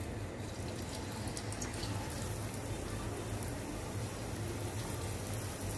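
Grated-potato kababs shallow-frying in hot oil in a pan, a steady sizzle that picks up shortly after the start, over a steady low hum.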